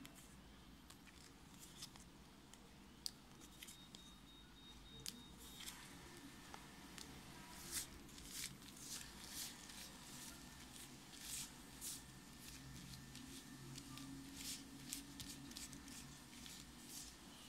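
Faint rustling and light crisp clicks of a pile of waterproof die-cut sticker flakes being shuffled and spread out by hand across a table, busiest in the middle of the stretch.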